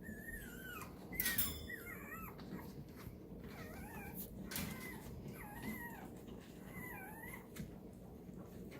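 Young puppies whimpering, with about five short, high, wavering whines and a few small clicks of movement in between.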